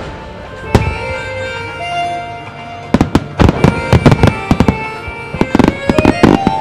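Aerial firework shells bursting in a starmine barrage: one bang a little under a second in, then a rapid run of bangs from about three seconds on. Music plays underneath.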